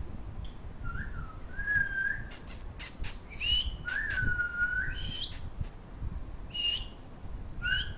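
Whistling: a string of short whistled notes. Some are held level for most of a second and others hook sharply upward, jumping between a lower and a higher pitch. A few sharp clicks fall in the middle.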